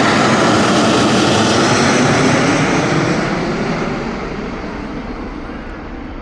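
Jet noise of an Airbus A380's four turbofan engines at take-off power, a loud even roar that begins to fade about three seconds in as the airliner moves away, the hiss dying off before the low rumble.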